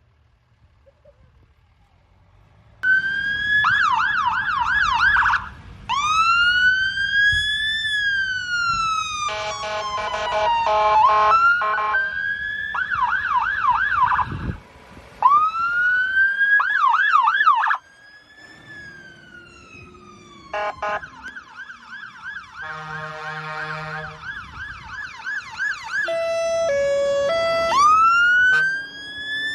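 Emergency vehicle sirens sounding from about three seconds in, switching between slow rising-and-falling wails, fast yelps and alternating two-tone notes, with vehicle engine rumble underneath.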